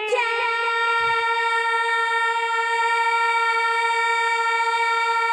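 A woman singing a naat holds one long, very steady note on the word "ye", unaccompanied by other clear sounds.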